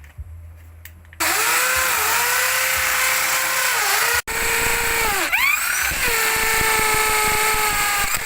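Electric drill with a 13 mm bit boring into concrete hollow blocks. It starts about a second in and runs with a steady whine that sags in pitch and spins back up several times as the bit bites. It cuts out for an instant partway through.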